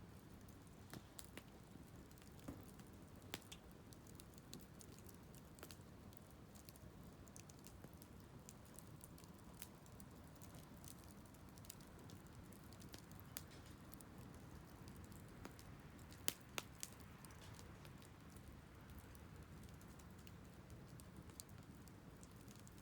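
Wood fire crackling faintly: irregular small pops and snaps, with a louder pair of pops about sixteen seconds in.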